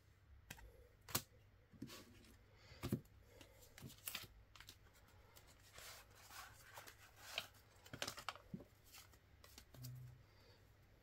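Playing cards and their packaging being handled: a scatter of faint, irregular clicks and snaps with light rustling between them.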